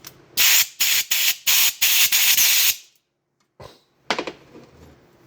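About five short hissing spray blasts in quick succession, the last one longer, flushing out a hydraulic roller lifter as it is cleaned; then a small click and a sharper knock as the part is handled.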